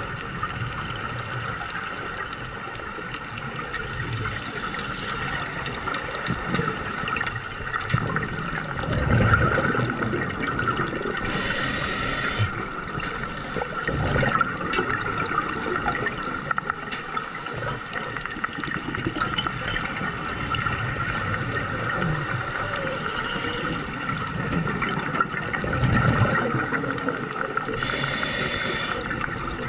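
Underwater sound from a dive camera: a steady wash of water noise with scuba breathing, rumbling bursts of bubbles every few seconds and two short hisses, about eleven seconds in and near the end.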